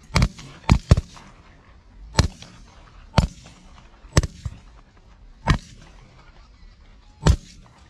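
Several shotguns firing at decoying geese: about eight sharp shots in irregular succession, three close together in the first second, then the rest spread a second or more apart.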